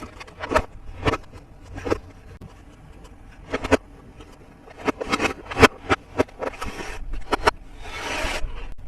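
Hands handling toy packaging and plastic parts: a series of irregular taps, clicks and knocks, with a longer scraping rustle near the end.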